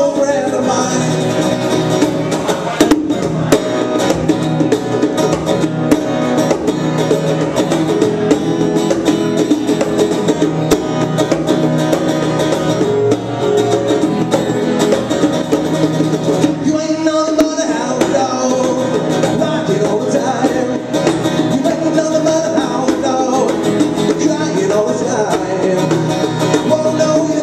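Live acoustic duo: a strummed acoustic guitar and hand-played bongos, with singing into the microphones.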